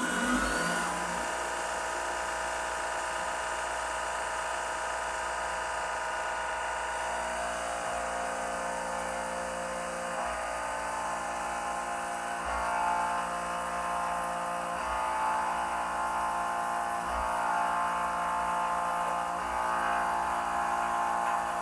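ProtoTRAK RMX bed mill running a CNC program: the spindle comes up to speed at the start, then a steady whine with several held tones as a 3/4-inch end mill ramps into the workpiece and pocket-mills a slot, with lower tones joining as the cut deepens.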